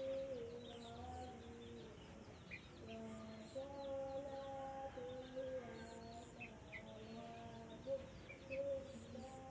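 Birds chirping: many quick, short high chirps with a few brief lower notes, over a background of held tones.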